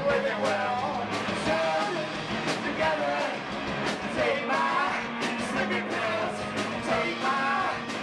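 Live rock band playing loud: a singer's wavering melody over electric guitar, a held bass note and a steady drum beat with regular cymbal hits.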